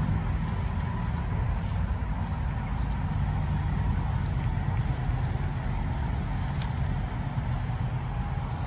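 A steady low rumble that does not change, with a faint steady tone above it.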